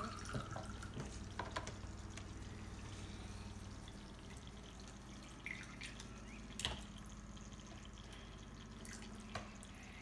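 Faint trickle and drip of water from a toy kitchen sink's running-water faucet, with a few light knocks of plastic dishes and cups being handled, the clearest about two-thirds of the way through.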